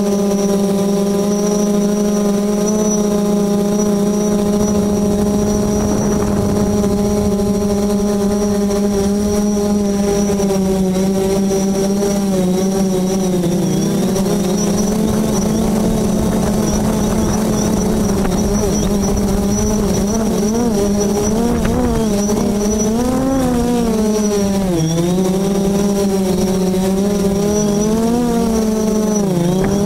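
Multirotor drone's propellers and motors humming steadily while it hovers. About halfway through, the pitch starts to waver and dips sharply a few times as the drone comes down toward the treetops.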